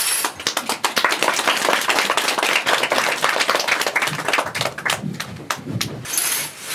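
Audience applauding, many irregular hand claps that start just after the beginning and die away about six seconds in.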